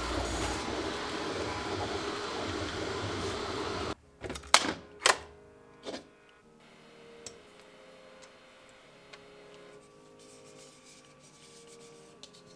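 A steady, dense backdrop cuts off about four seconds in, followed by a few sharp cracks as a freshly printed plastic owl bowl is popped off the 3D printer's textured build plate. After that come faint, scattered small clicks of the plastic print and its tree supports being handled.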